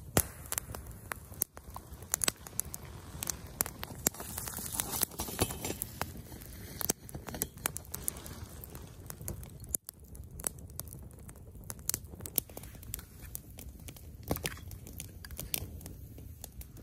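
Small campfire of dry sticks crackling, with many irregular sharp pops and snaps over a low hiss.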